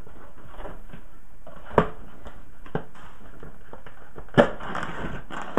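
A knife cutting open a cardboard box and the flaps being handled: scraping and rustling with small ticks, and two sharp knocks, the louder about four seconds in.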